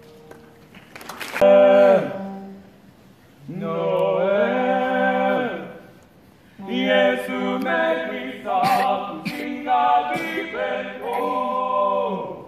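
Choir singing in long held phrases with short breaks between them. A sharp click comes about a second in, just as the singing starts.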